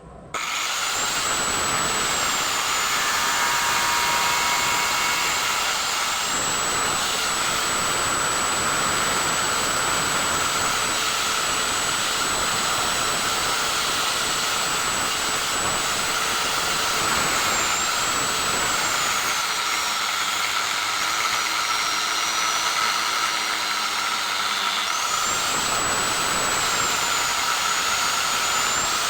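A small electric power tool running continuously, a steady rushing motor noise with a high whine that dips in pitch at times, as under load. It starts abruptly.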